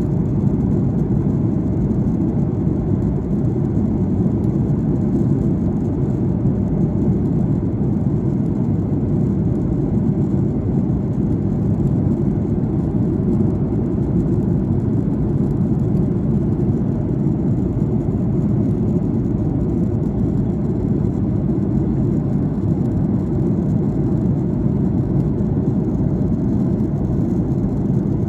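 Airliner cabin noise during descent: a steady low rumble of the engines and the air rushing past the fuselage, heard from inside the cabin.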